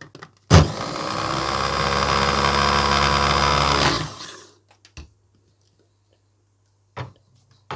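Heinner electric mini chopper switching on with a click and whirring for about three and a half seconds as its blade minces chopped vegetables and green onion, then spinning down. A couple of light knocks follow as the motor top is lifted off the bowl.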